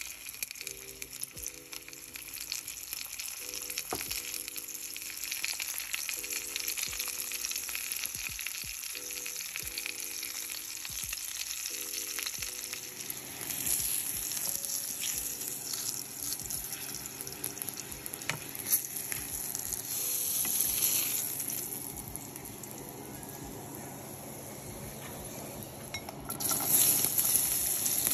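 Dried fish frying in hot oil in a stainless steel pan, a steady sizzle, with a wooden spatula moving the fish partway through. Near the end the sizzle gets louder as sliced garlic goes into the oil.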